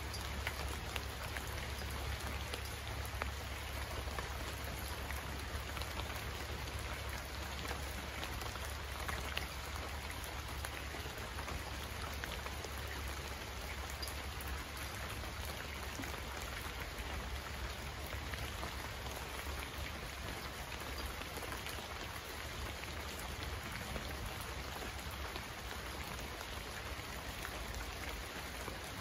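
Steady rain falling, a dense even hiss of countless small drop ticks, with a steady low rumble underneath.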